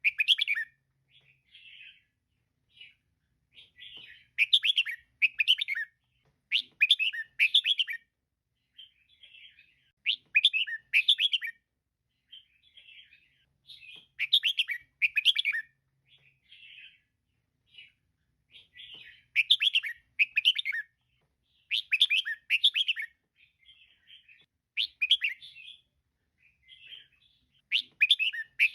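Female red-whiskered bulbul calling: short phrases of quick, bright chirping notes, with louder bursts every two to three seconds and softer calls between.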